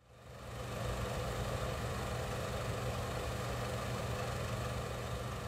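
A steady low mechanical hum, fading in over the first second and holding even.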